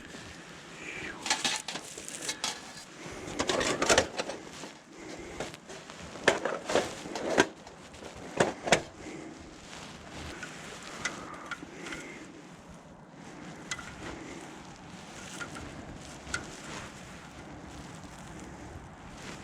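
Camp gear being handled: a run of sharp clinks and knocks, busiest in the first nine seconds, then sparser.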